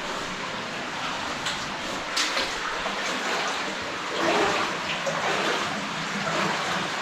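Steady rush of running water in a cave, with a brief sharp louder sound about two seconds in and a louder swell around four seconds in.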